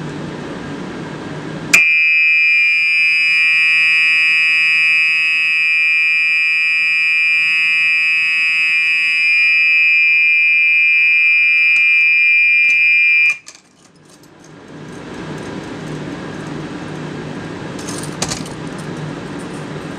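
A 1993 Gentex SHG fire alarm horn on continuous coding, set off by a pulled pull station, sounds one steady, very loud electronic tone for about eleven seconds, then cuts off suddenly. Afterwards a fan hums and keys jingle briefly near the end.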